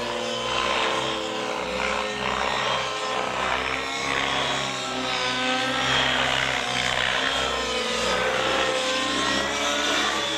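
Align T-REX 700 radio-controlled helicopter with a YS .91 nitro engine in flight. The engine-and-rotor whine rises and falls in pitch as it manoeuvres and passes.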